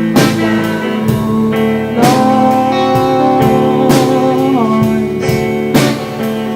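Live rock band playing an instrumental passage with no singing: electric guitar holding long sustained notes over bass and drums, with cymbal crashes about every two seconds. A held note slides down in pitch about two-thirds of the way through.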